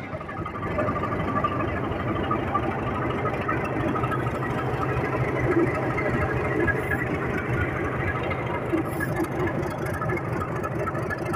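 Diesel engine of a metre-gauge YDM-4 locomotive running steadily as the locomotive rolls past alongside the platform, moving up to couple on as the banker engine.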